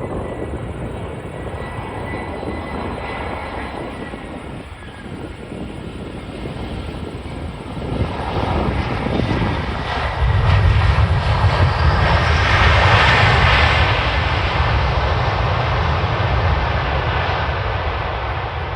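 Airbus A320 jet engines during landing: a steady roar that swells about eight seconds in as the airliner comes closest, then eases off slightly.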